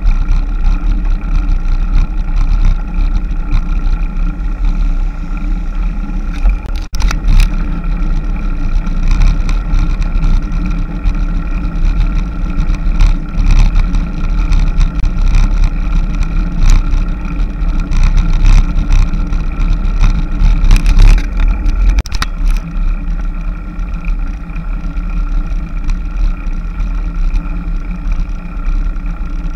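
Loud, steady rumble of wind and road noise on a camera carried on a moving road bicycle, with many small knocks and rattles.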